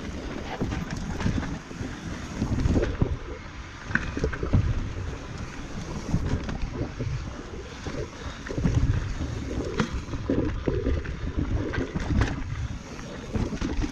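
Transition Patrol Carbon mountain bike descending a rough technical trail: gusts of wind buffet the chest-mounted camera's microphone over the rush of tyres on dirt, with frequent knocks and rattles from the bike.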